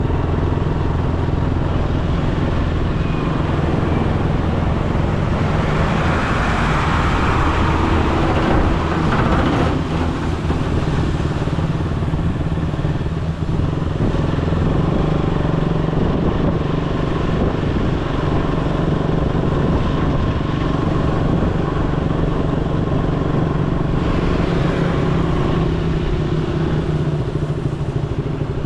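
Motorcycle engine running steadily with continuous road noise, a louder hiss swelling for a few seconds about six seconds in and again more faintly near the end.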